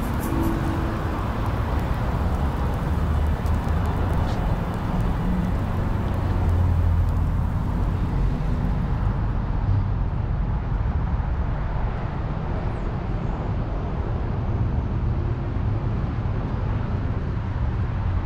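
Steady outdoor street ambience: a low, even rumble of road traffic with no single event standing out.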